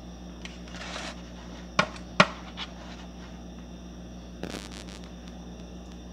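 Sharp clicks and taps from handling a plastic marinade-injector syringe over a raw turkey in a foil pan: two close together about two seconds in, and a short cluster about four and a half seconds in, over a steady low hum.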